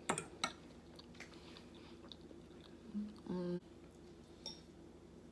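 A person chewing food close to the microphone, with a couple of sharp wet mouth clicks at the start and a short hum of the voice about three seconds in.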